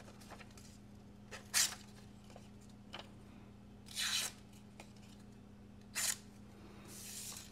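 The thin wharncliffe blade of an MRMR Designs Phantom folding knife slicing through printer paper: three short, papery swishes about two seconds apart, the middle one the longest, with faint paper rustling between.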